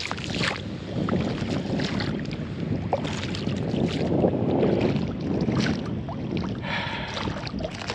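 Sea water splashing and slapping against the hull of an inflatable dinghy, with wind on the microphone.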